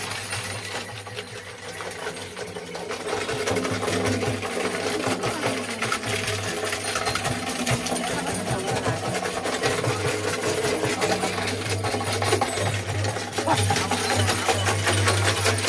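A Nepali shaman's dhyangro, a handled frame drum, beaten in a fast, steady roll, with brass bells on his costume jingling as he dances. The drumming grows louder about three seconds in.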